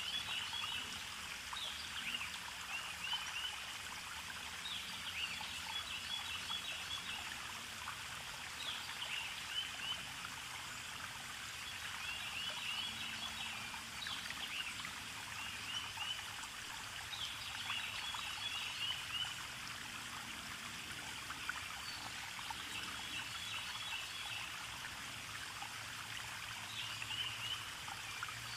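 Flowing water running steadily, with a bird calling over it every couple of seconds: a quick falling note followed by a short rapid trill.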